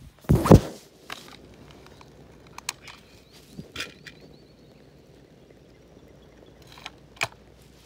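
Phone being handled against hand or clothing: a loud rubbing knock about half a second in, then scattered light clicks and taps.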